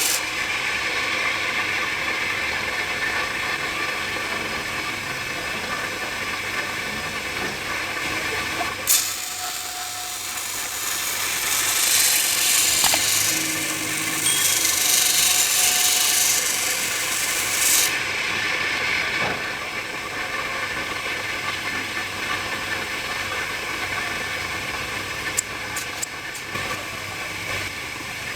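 Scissor blade being sharpened: steady abrasive rubbing of steel against a sharpening surface, growing louder and harsher for several seconds midway, with a single sharp click.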